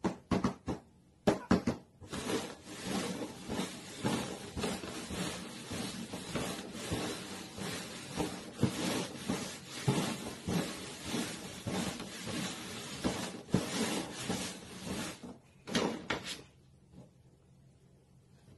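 Red cups being shuffled quickly over a cardboard box: a few separate knocks, then a fast continuous run of light knocks and scrapes for over ten seconds, ending with a couple more knocks.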